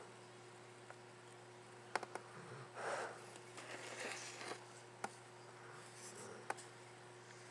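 Sleeping dog snoring softly: a few noisy breaths in and out, with several sharp clicks and a faint steady hum underneath.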